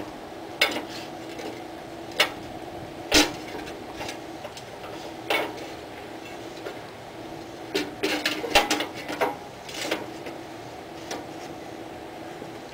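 Sheet-steel dash panel of a riding lawn tractor clanking and scraping against the metal frame as it is worked into place by hand. There are scattered knocks, the loudest about three seconds in and a quick run of clanks from about eight to ten seconds, over a steady low hum.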